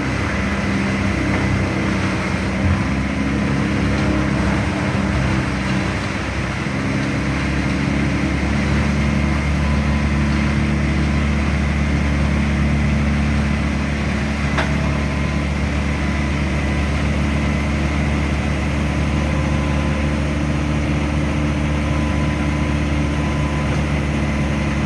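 A motor running steadily at an even pitch, its note shifting once several seconds in and then holding.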